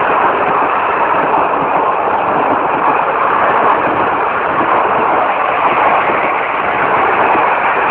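Passenger train rolling past at speed: a steady rush of wheel and rail noise.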